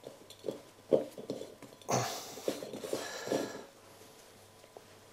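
Hands kneading and squeezing soft, sticky boilie base-mix paste in a glass bowl as more dry base mix is worked in to stiffen it: a few soft knocks and squelches, then a longer stretch of squelching and rubbing about two seconds in.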